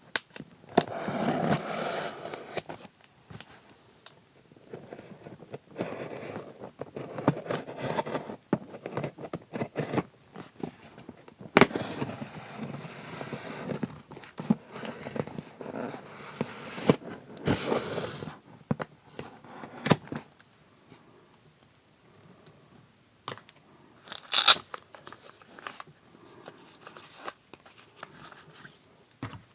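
Packaging being torn open and plastic wrap crinkling while a keyboard cover is unboxed, in irregular rustling spells. Scattered sharp clicks of handling, and one loud sharp knock about 24 seconds in.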